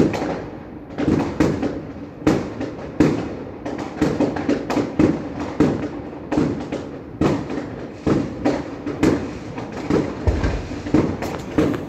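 Many fireworks going off at once across a city: an unbroken, irregular run of overlapping bangs, with a loud one about every half second to second.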